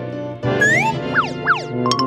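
Background music with comic sound effects: a rising glide about half a second in, then two quick falling sweeps, and a ringing tone near the end.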